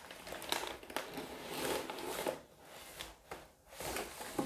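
Rustling and light clicks and knocks of a laptop and its cardboard and plastic packaging being handled, quieting briefly twice in the second half.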